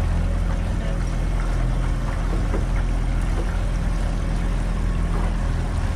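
A boat's engine running steadily at low speed, a constant low hum, under a wash of water and wind noise.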